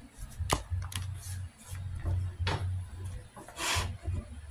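Shirt fabric rubbing and brushing against a clip-on microphone, with a few sharp knocks and one longer scrape near the end, over a low hum that keeps starting and stopping.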